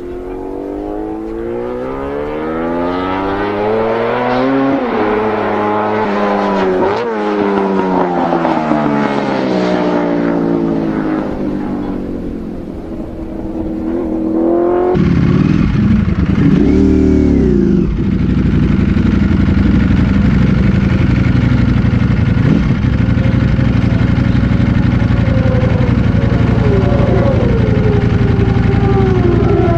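Racing motorcycles passing at speed on a track, the engine note climbing and falling as they go by. About halfway it cuts to a Ducati Panigale V4 Speciale's V4 engine heard from on board, revved briefly and then running steadily at a standstill.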